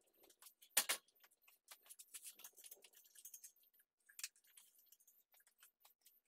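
Faint, scattered metallic clicks and clinks as a four-cylinder engine hanging from a hoist is lowered into a car's engine bay. The sharpest clink comes about a second in, another a little after four seconds.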